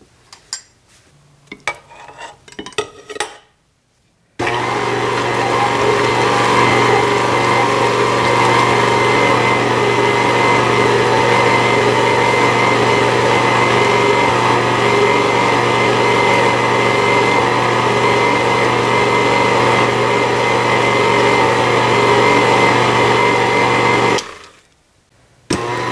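A few light clicks and taps, then a KitchenAid stand mixer's motor starts about four seconds in and runs steadily while its flat beater mashes potatoes in the steel bowl. It stops briefly near the end and starts again.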